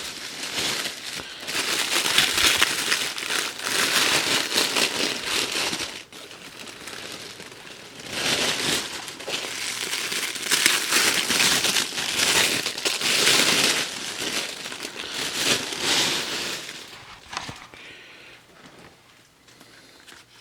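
Candy-container packaging being handled and crumpled: a dense crackling rustle in two long stretches with a brief lull between, dying away near the end.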